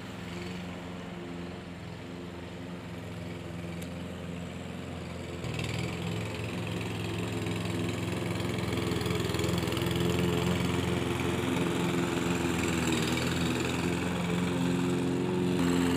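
Makita walk-behind lawn mower's Briggs & Stratton 675 series 163cc single-cylinder engine running steadily while mowing grass. The engine grows louder from about five seconds in as the mower comes nearer.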